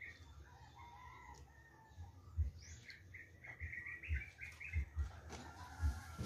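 Birds calling in the background: scattered short chirps, with a quick run of high notes about three seconds in. Low bumps on the microphone make the loudest moments.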